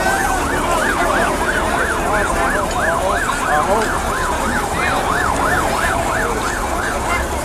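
Ambulance siren in a fast yelp, its pitch swinging up and down about three times a second; it cuts off shortly before the end.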